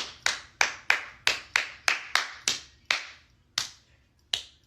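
Hands clapping a cheer beat: about a dozen sharp claps at roughly three a second, spacing out near the end.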